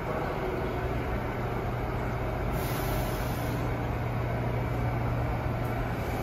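Subway train standing in the station with its equipment running: a steady low hum over station noise, with a short hiss about two and a half seconds in. The hum stops near the end.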